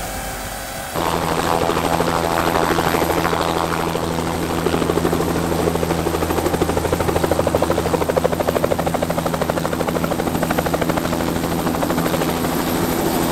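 A small helicopter coming in to land close by, its rotor blades beating in a fast, steady pulse over a constant engine tone. It starts suddenly about a second in.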